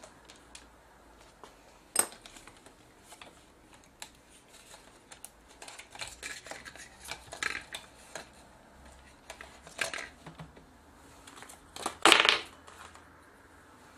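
Hard plastic and metal parts of a camcorder housing handled and worked apart by hand: scattered clicks and small rattles, a sharp click about two seconds in, and the loudest clatter near the end.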